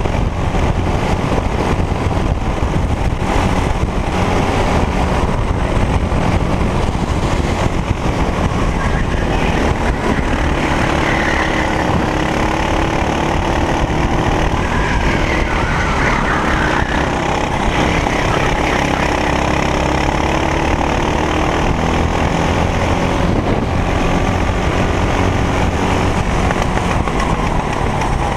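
Racing kart engine running hard at race speed, picked up close by an onboard camera together with wind rush. Its note falls and rises through the corners in the middle.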